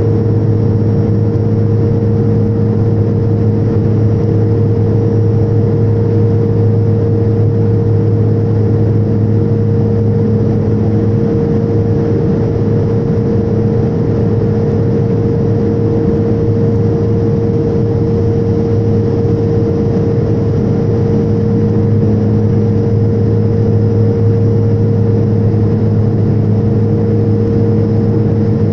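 Turboprop engine and propeller running steadily in cruise, heard inside the passenger cabin: a constant low hum made of several steady tones over a rushing of air.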